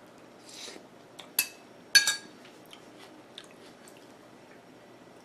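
A metal spoon clinking against a ceramic soup bowl, two sharp ringing clinks about a second and a half and two seconds in, after a short soft eating sound; a few faint ticks follow.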